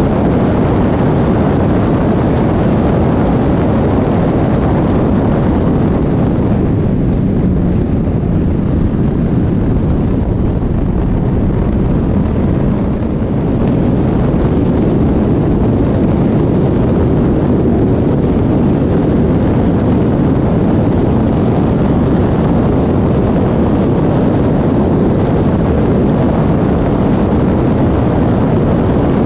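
Caterham 420R's Ford Duratec four-cylinder engine at racing speed, heard from the open cockpit with heavy wind noise on the camera microphone. The sound eases briefly a little under halfway through, then picks up again.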